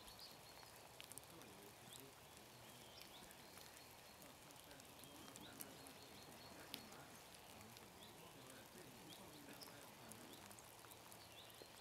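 Near silence: faint, scattered short chirps of small birds, with a faint low murmur of voices.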